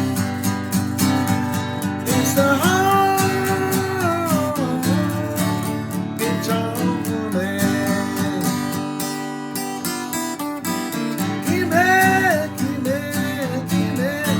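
Instrumental country music: a strummed acoustic guitar keeps a steady rhythm while a higher lead line plays long notes that slide and bend in pitch.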